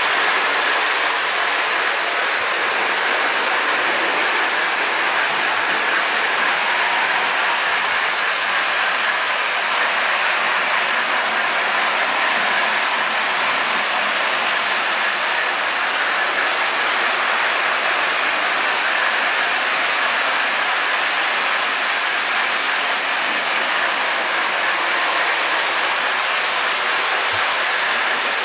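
Several tinplate toy trains, Marx 1666 locomotives and a Canadian Pacific Jubilee tin lithograph set, running together on tubular three-rail track: a steady, unbroken running noise of wheels and motors.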